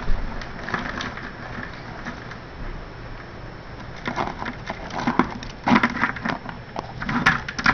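Live blue crabs scrabbling in a plastic bucket: a run of short clicks and scrapes in the last few seconds, after a single bump at the start.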